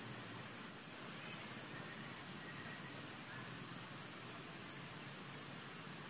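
Insects droning steadily in the trees, one constant high-pitched shrill tone over a soft hiss.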